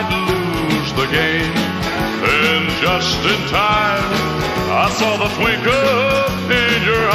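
Country music with a steady beat, an instrumental break without vocals, melody lines sliding in pitch over bass and drums.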